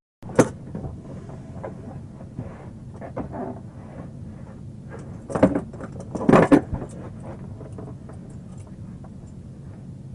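Car engine idling with a steady low hum, under scattered clicks and rustles. A sharp click comes just under half a second in, and two louder muffled bursts come about five and a half and six and a half seconds in.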